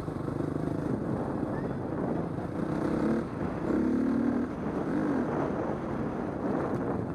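Husqvarna 250 four-stroke dirt bike engine running while riding, heard from on the bike, its pitch rising and falling with the throttle around the middle.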